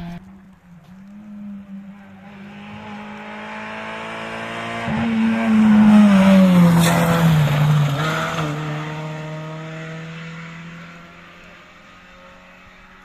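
Rally car coming up the stage with its engine held at high revs, growing louder until it passes close about six seconds in. Its engine note drops as it goes by, with a short sharp crack just after the pass, then fades away down the road.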